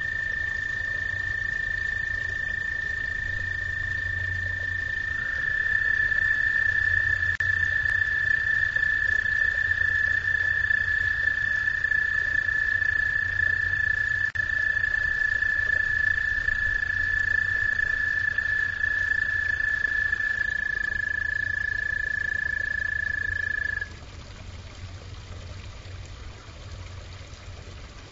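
Pond frogs giving long, steady trills: one frog trills from the start, a second joins at a slightly lower pitch about five seconds in and stops near twenty seconds, and the first cuts off suddenly a few seconds later. Pond water trickles underneath throughout.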